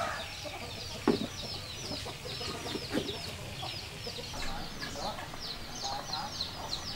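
Chickens in a yard: a rapid, steady run of high peeping, with a few lower clucks. Two dull knocks come about one and three seconds in.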